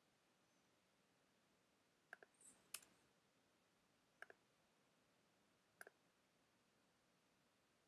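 Faint computer mouse button clicks, four in all: about two seconds in, again just after, then near four and near six seconds. Most are a quick double tick.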